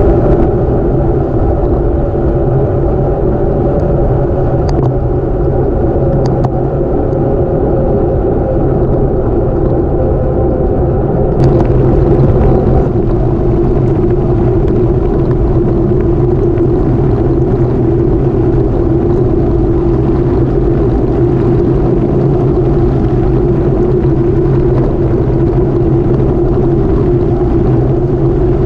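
Steady wind rush over the microphone with tyre hum from a gravel bicycle rolling at speed, the tone shifting slightly about twelve seconds in as the road turns from pavement to gravel.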